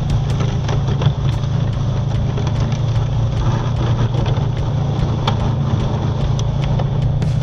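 2021 Honda Foreman Rubicon 520 ATV's single-cylinder engine running steadily under load while its front plow pushes heavy snow, with scattered clicks over the engine hum.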